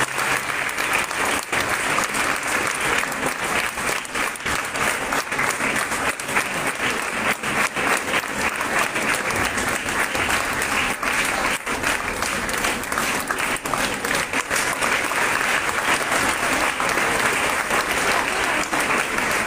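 Audience applauding steadily, many hands clapping without a break.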